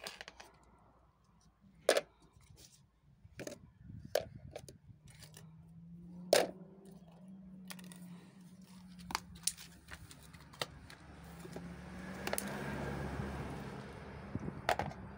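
Plastic and wooden clothespins clicking and clattering as they are picked up and dropped into a plastic storage box: scattered sharp clicks, the loudest about two and six seconds in. A low steady hum runs underneath from about four seconds on.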